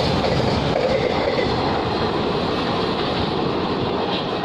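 Indian Railways container freight train running through at speed: steady noise of its wagon wheels on the rails, easing slightly as the last wagons pass.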